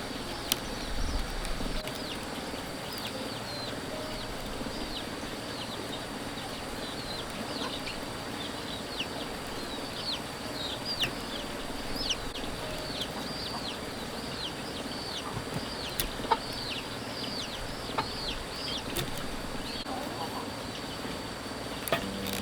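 Small birds chirping over and over, many short high calls that fall in pitch, with a few sharp clicks in between.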